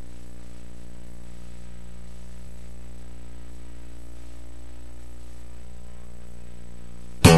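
Steady electrical hum with a buzzy edge, unchanging throughout; a loud burst of other audio cuts in right at the end.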